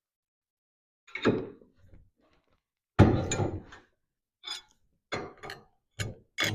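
Irregular metal knocks and clunks as T-bucket front-end parts are shifted and tapped to bring the drop axle's mounting holes into line. The sound starts after about a second of quiet. There is one heavier clunk about three seconds in, then a run of quicker, lighter knocks near the end.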